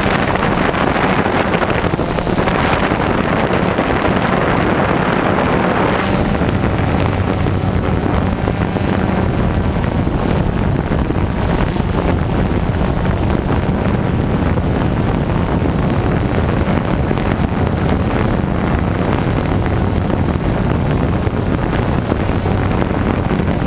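Small multirotor drone's propellers humming steadily in flight, with wind rushing over the microphone.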